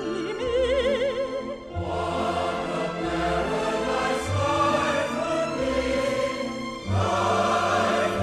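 Background music: a solo operatic voice singing with wide vibrato, joined about two seconds in by a fuller choir-like ensemble over low sustained notes.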